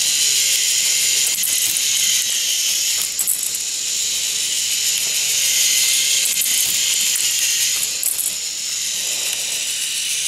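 K'NEX stepper ball lift running: a steady mechanical clatter of its plastic parts that swells and eases in a cycle about every three seconds, with a few sharp clicks.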